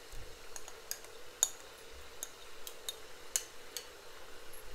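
Mutton frying in masala in a steel pot, a faint sizzle with scattered crackles and ticks at irregular intervals.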